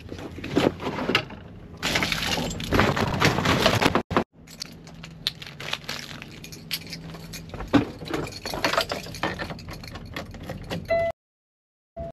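Crinkling and rustling of hand warmer packets, plastic and bedding being handled, a dense run of crackles that breaks off briefly about four seconds in. A faint steady low hum lies underneath.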